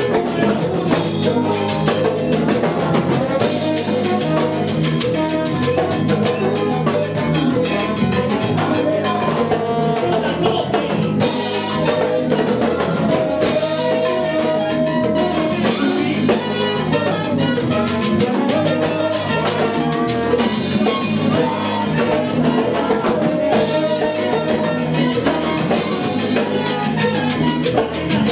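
A salsa orchestra playing salsa, with a drum kit and Latin percussion keeping a steady beat under held pitched instrument notes.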